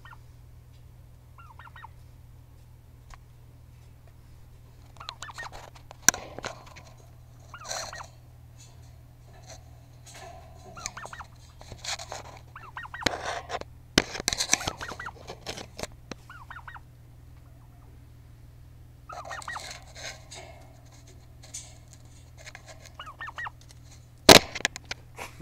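Domestic turkeys calling close by in repeated bursts of quick, rising-and-falling calls. A sharp knock comes near the end.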